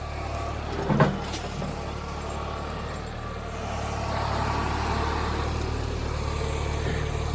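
Engine of heavy machinery, an excavator or tractor, running steadily, growing a little louder after about four seconds, with a brief louder sound about a second in.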